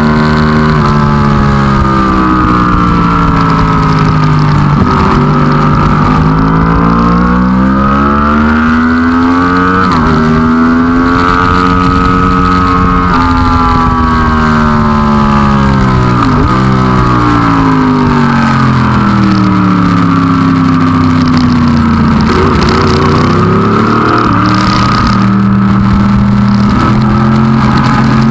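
Race car engine on a road course, running hard the whole time. Its pitch climbs under acceleration and falls back again about half a dozen times, with quick dips at gear changes, the way a lap of corners and straights sounds.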